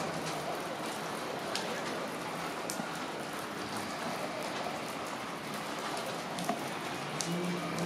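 Steady rain falling on roofs and surfaces, an even hiss with a few close drops ticking sharply now and then. A low hum comes in near the end.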